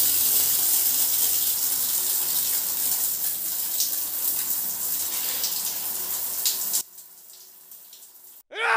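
Shower spray running hard onto a person's head, a steady hiss of falling water that stops abruptly about seven seconds in.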